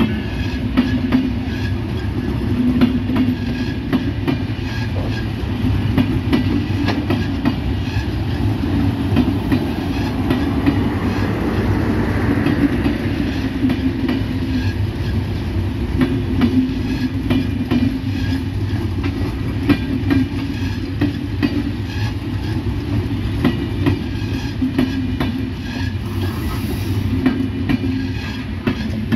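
Passenger coaches of the Nilsagor Express, a Bangladesh Railway intercity train, rolling past close by: a steady wheel-on-rail rumble with a running series of sharp clacks as the wheels cross the rail joints.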